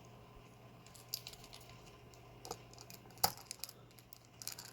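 A few light clicks and taps as a lock cylinder and picking tools are handled, the sharpest about three seconds in.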